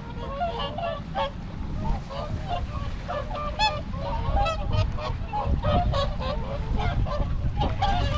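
A large flock of swans calling, many short honking calls overlapping continuously, over a steady low rumble.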